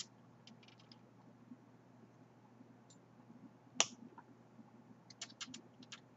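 Faint small clicks of metal snap-jewelry charms being handled and pressed into a snap earring base, with one sharper click a little under four seconds in and a quick run of small clicks near the end.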